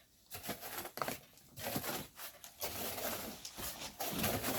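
Irregular gritty scraping and rustling, a run of uneven strokes that starts about a third of a second in.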